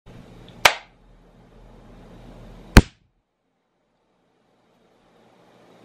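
Two sharp finger snaps about two seconds apart, over faint room noise.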